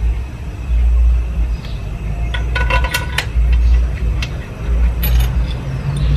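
Metal parts and tools clinking and tapping, with a cluster of sharp clinks that ring briefly a little over two seconds in and a few more about five seconds in, over a heavy, uneven low rumble.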